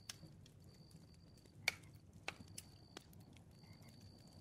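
Campfire crackling faintly: scattered pops and snaps of burning wood, the loudest about a second and a half in, over a low rumble of flame.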